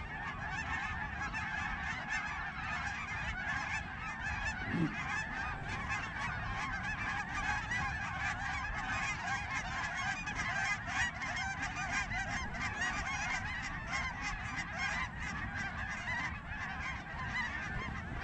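A large flock of snow geese calling overhead: a dense, continuous chorus of many overlapping honks.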